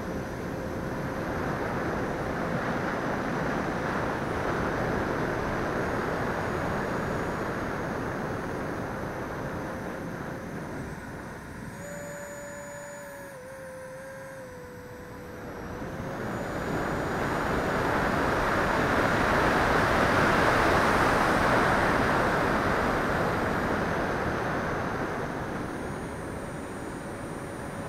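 Radio-controlled L-39 Albatros model jet in flight, heard from its onboard camera: a steady rush of airflow and motor noise. Around the middle it drops back, with a thin whine sliding slightly lower, then it swells to its loudest in the second half.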